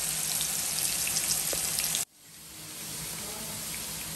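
Marinated fish steaks shallow-frying in coconut oil in a pan: a steady sizzle with fine crackles. The sizzle cuts off abruptly about two seconds in and comes back softer.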